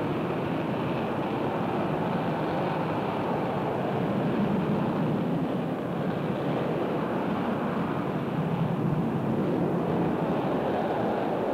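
Twin jet engines of F-89 Scorpion fighters running at takeoff power as they roll down the runway: a steady jet noise with no clear change in pitch.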